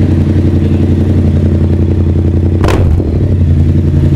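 Yamaha MT-07's 689 cc crossplane parallel-twin engine idling steadily through a short aftermarket muffler being sound-tested, with a brief sharp noise about two and a half seconds in.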